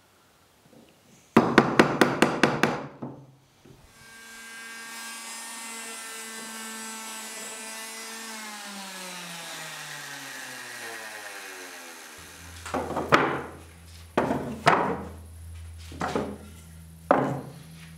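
Rapid hammering on wood, about eight quick blows. Then a power tool's motor runs steadily and winds down with falling pitch until it stops. Several separate knocks on wood follow over a low steady hum.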